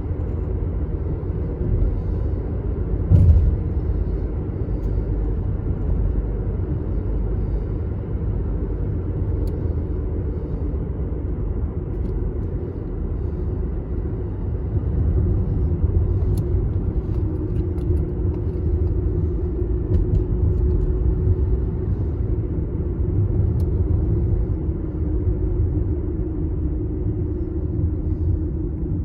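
Steady road and engine rumble of a car being driven, heard from inside the cabin, with a single thump about three seconds in.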